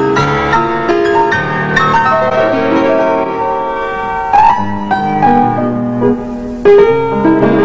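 Grand piano playing a melodic instrumental passage between sung verses, with two loud accented chords, one about halfway through and one near the end.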